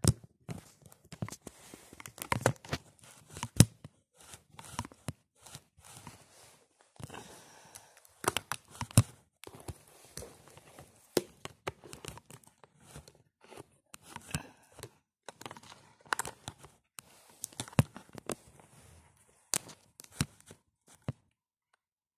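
Crinkling and rustling of a shiny, coated puffer jacket as the wearer moves, in irregular sharp crackles and scrapes.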